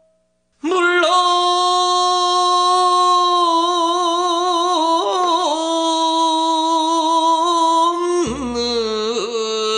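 Korean jeongga (classical lyric song) singing, in the style of a sijo: a lone voice enters about half a second in on one long held note with slow wavering, bends around the middle, then steps down to a lower held note near the end.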